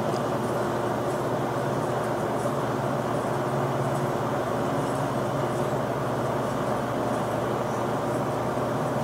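A motor running with a steady, even hum.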